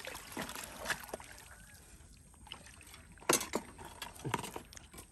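Water pouring out of a tipped plastic bucket into shallow water, trailing off within the first couple of seconds. About three seconds in come a few sharp splashes and knocks as the bucket is set upright.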